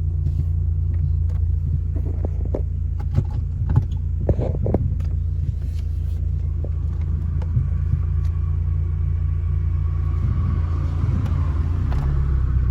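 Steady low rumble of a car driving, heard from inside the cabin, with a few brief knocks and rattles a few seconds in.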